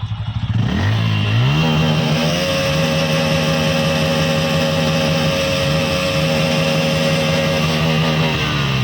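Bajaj Pulsar single-cylinder motorcycle exhaust: idling, then revved up over about two seconds and held at high revs, dropping briefly near the end before climbing again.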